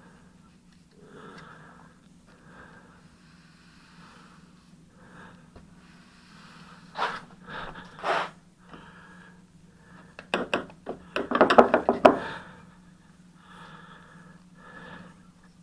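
Paintbrush bristles swishing in short strokes along a wooden window sash, and the brush scraping in a small paint can as it is loaded. About ten seconds in comes the loudest part, a quick run of sharp clicks and scrapes lasting about two seconds. A low hum runs underneath.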